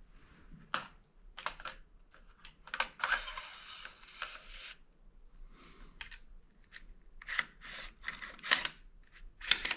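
Metal parts of a TriStar Viper G2 semi-automatic shotgun being handled and fitted together during reassembly: scattered clicks and knocks, a longer sliding scrape about three seconds in, and a quick run of clicks near the end.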